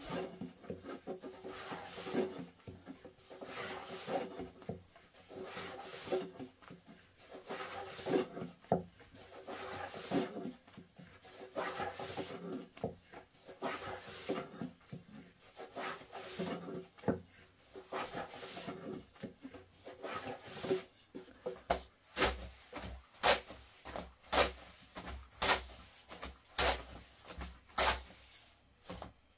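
Repeated rubbing and scraping strokes on wood, about one a second. About two-thirds of the way in they give way to a run of sharp knocks, about two a second.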